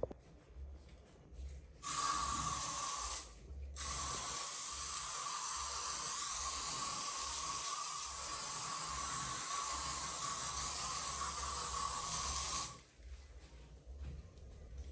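A steady hiss with a faint steady tone in it, starting about two seconds in, breaking off briefly, then running for about nine seconds before stopping abruptly.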